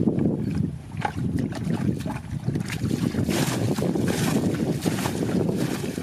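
Muddy water being bailed with a plastic bucket: scooping and sloshing in a shallow pool, and water flung out in splashes, which are stronger from about three seconds in, over a low rumble.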